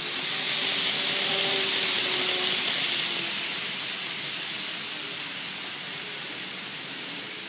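Model trains rolling along the layout's track: a steady high hiss of small wheels on rail, with a faint motor whine in the first few seconds. It fades steadily from about three seconds in as the trains move away.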